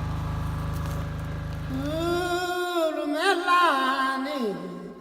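A steady low hum that cuts off abruptly about halfway through, overlapped by a single voice singing one long drawn-out phrase whose pitch bends up and down and then falls away near the end.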